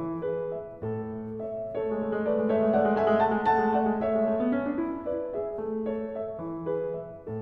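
Background piano music: a melody of held notes over a low accompaniment.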